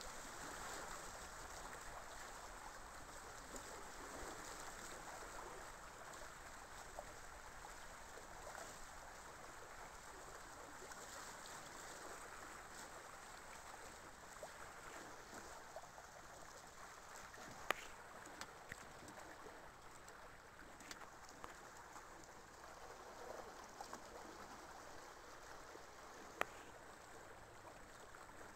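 Faint, steady wash of water running along the hulls of a Hobie 17 catamaran under sail. Two sharp clicks stand out, one a little past the middle and one near the end.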